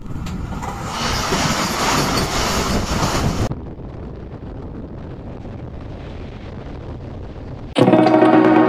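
Moving passenger train running along the track, heard from an open doorway with wind buffeting the microphone. It is loud for the first few seconds, then cuts suddenly to a quieter steady rumble. Music starts near the end.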